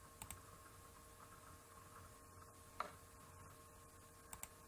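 Faint computer mouse clicks over near-silent room hum: a quick pair of clicks about a quarter second in, a single louder click near the middle, and another quick pair near the end as the Save button is pressed.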